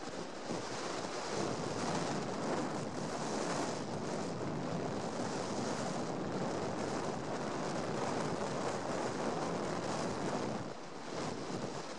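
Steady rush of wind and tyre noise from a car driving along a road, with wind buffeting the microphone held at the car's side.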